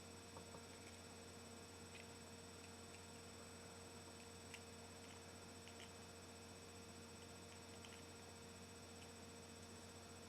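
Near silence: a steady low electrical hum, with a few faint scattered clicks.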